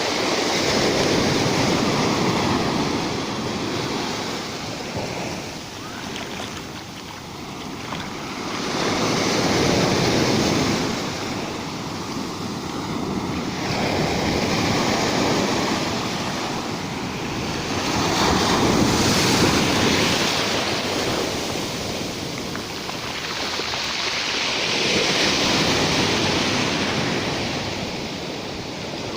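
Rough sea, waves breaking on the shore: the surf swells and falls back five times in half a minute.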